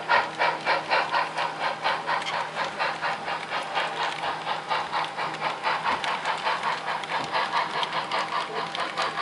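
Sound-equipped model steam locomotive chuffing as it moves cars, its exhaust beats quickening from about four to about six a second, over a faint steady hum.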